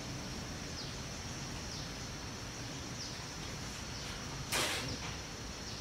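Steady outdoor background noise with a thin high whine, and a short falling chirp repeating about once a second. A brief rustling burst comes about four and a half seconds in.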